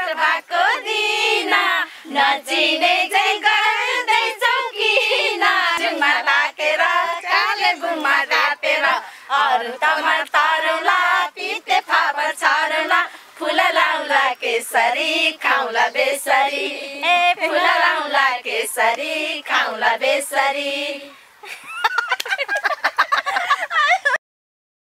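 High-pitched female voice singing in wide, swooping pitch lines with no instrumental backing, broken by many short clicks. It cuts off suddenly just before the end.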